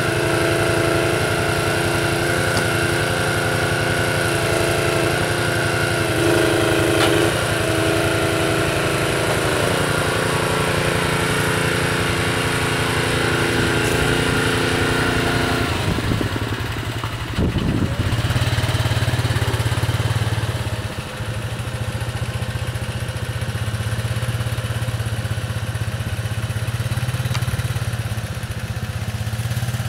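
Small engines running steadily as the Jussi 400 trailer crane works, the note shifting in steps. After about sixteen seconds the sound changes to a lower, steady engine note as the ATV pulls the loaded trailer away.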